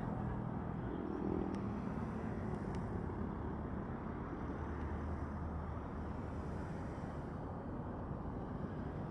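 Distant jet engines of a Delta airliner rolling out on the runway after landing: a steady low rumble with a hum that fades away in the first couple of seconds.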